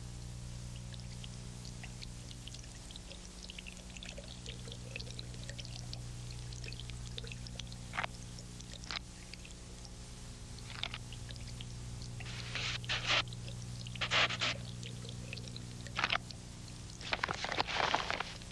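Parchment scroll being written on and handled: faint pen scratching, then several short, louder rustles of the parchment in the second half, over a steady low hum.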